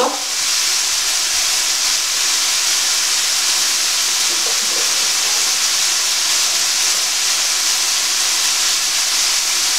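Chicken strips in a honey and soy sauce glaze sizzling steadily in a frying pan.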